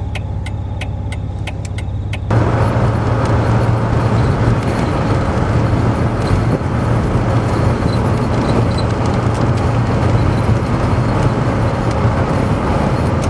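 Car engine running, heard from inside the vehicle, with rapid regular ticking for the first two seconds. About two seconds in, louder road noise takes over as the car drives on steadily.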